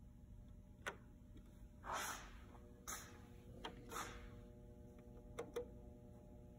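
Motorized faders on a Yamaha DM2000 digital mixing console moving as the desk initializes: a string of faint, short swishes and clicks, the longest about two seconds in.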